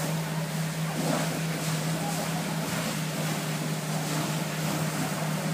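Steady low drone of a fire engine's pump engine under a broad hiss of a hose stream and steam on a burning car.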